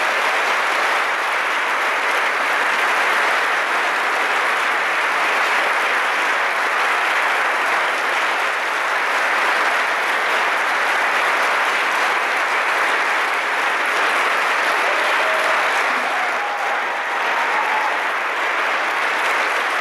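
Audience applauding: a loud, dense, steady clapping.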